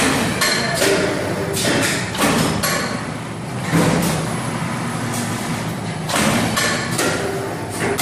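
Compact CNC transformer core cutting machine running: an uneven train of sharp knocks from its shear and punching strokes, about two to three a second in clusters, over a steady machine hum.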